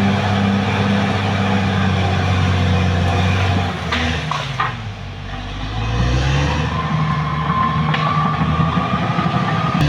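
Caterpillar D6R XL bulldozer's diesel engine running hard; its note sags and the sound drops for a moment partway through, then climbs back up. A few short clanks come at the dip, and a thin, slightly rising whine runs through the latter part.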